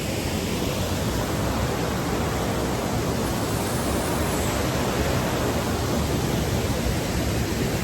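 Waterfall rushing, a steady, even roar of falling water that does not change.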